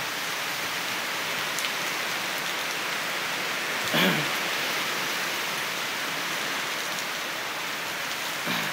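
Heavy thunderstorm downpour: rain pouring down in a steady hiss, with one brief louder sound, falling in pitch, about four seconds in.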